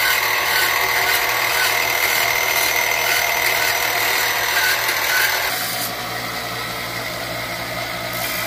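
Benchtop vertical bandsaw cutting a notch into a small piece of steel: a steady, loud machine noise with a high whine. About five and a half seconds in it changes abruptly to a slightly quieter steady running sound, a belt sander.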